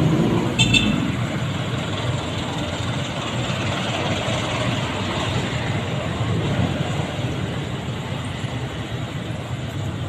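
Street traffic with motorcycles passing, a steady rumble of engines and tyres, with a short high-pitched tone about a second in.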